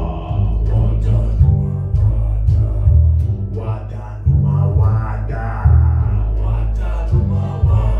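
A live band playing a song. A man sings over a plucked long-necked string instrument, with an upright double bass playing deep notes that change about every second and an electric keyboard behind them.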